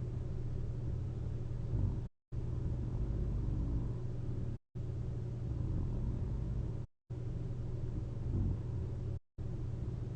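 Person snoring softly while asleep on their back wearing a CPAP mask: a steady low rumble with rougher swells now and then. The sound cuts out to dead silence for a moment about every two and a half seconds.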